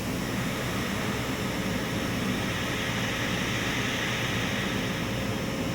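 AirVac DRS25 solder rework station running through its placement routine: a steady rush of air and fan noise over a low hum, with a faint steady tone.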